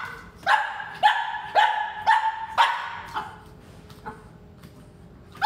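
Boxer puppy play-barking, five quick barks about half a second apart followed by a weaker one, then quiet.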